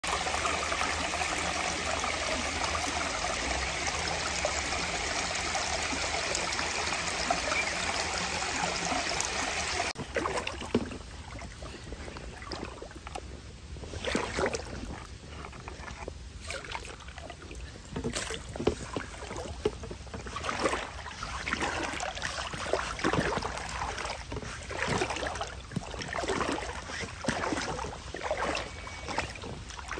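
Shallow stony river flowing with a steady rush of water. About a third of the way in this gives way to irregular sloshing and splashing as someone wades through the ankle- to knee-deep water.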